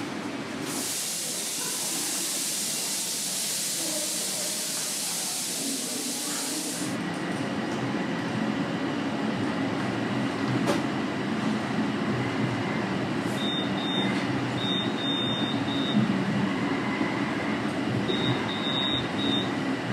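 Interior running sound of a Toronto Rocket subway car in the tunnel: a steady rumble that grows a little louder after about seven seconds. A steady hiss fills the first several seconds and then stops.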